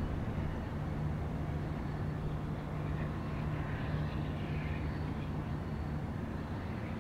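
Distant Siemens ALC-42 Charger diesel-electric locomotive, with its Cummins QSK95 engine, running steadily under power as it hauls a passenger train, heard as a low, even hum.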